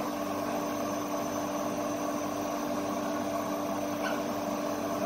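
Laser engraving machine running: a steady mechanical hum with a few steady tones. A brief faint sound comes about four seconds in.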